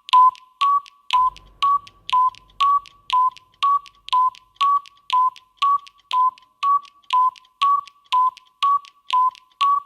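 Electronic tick-tock sound effect of a countdown timer: short ticks about two a second, alternating between a slightly lower and a slightly higher pitch.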